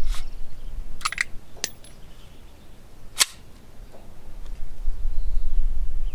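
Polymer-receiver ATI Omni Hybrid AR pistol being handled to clear a failure to eject, where a spent casing is stuck in the ejection port: a few sharp metallic clicks and clacks, with a small ringing cluster about a second in and a sharp click about three seconds in. Wind rumbles on the microphone underneath.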